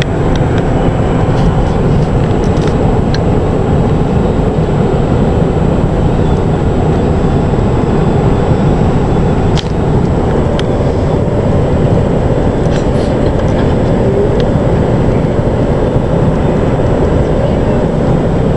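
Steady rumble of a moving vehicle heard from inside its cabin, with a few light clicks or knocks.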